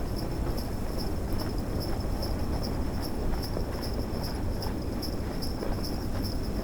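Sleigh bells jingling in a steady rhythm, about three or four shakes a second, as if on a sleigh being pulled, over the low steady rush of snowstorm wind.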